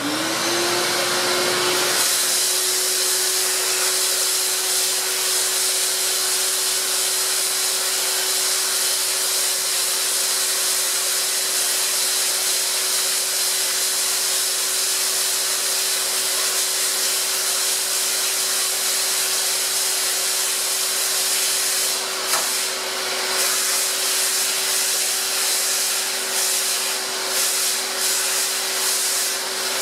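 Shop vac switched on: its motor whines up to speed within the first second or two, then runs steadily with a loud airy rush and a steady whine, the hose nozzle held at a hole saw to pull chips away and cool the cut. Some way past the middle the rush turns uneven, with light scratchy flutters.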